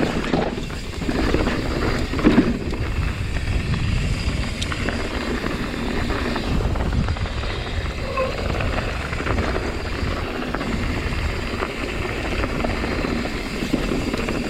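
Mountain bike riding down a dirt bike-park trail: steady rush of wind on the microphone mixed with the rattle of tyres and frame over the ground.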